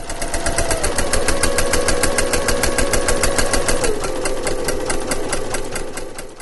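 Intro sound effect of rapid, even mechanical ticking, about eight a second, over a steady tone that steps down in pitch twice, fading out at the end.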